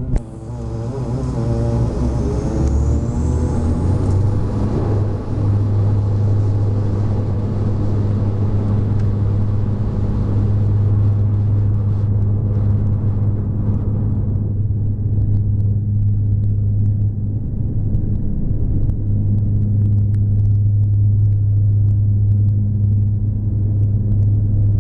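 Bombardier Dash 8 Q400's twin turboprops (Pratt & Whitney PW150A with six-blade propellers) at takeoff power, heard from the cabin. There is a steady deep propeller drone, with a rising whine in the first few seconds as power comes up. The broader rumble and hiss drop away sharply about fourteen seconds in, while the drone carries on.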